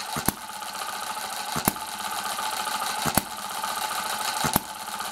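A model hit-and-miss engine, single cylinder with a 1-inch bore and 2-inch stroke, running at about 850 RPM. It fires with a sharp pop about every one and a half seconds, four times, and coasts with a steady mechanical clatter between firings.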